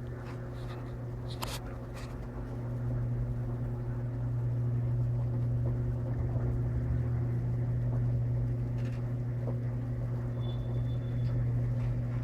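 Electrolux LTP15 top-load washing machine running mid-cycle: a steady motor hum with the churning of the wash, growing louder about three seconds in.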